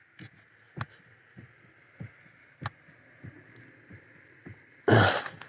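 Light knocks from the Lada XRAY Cross steering shaft's splined joint, repeating about every half second, then a louder, rougher burst near the end. The knock comes from play in the splines, where the clamp nut was left untightened.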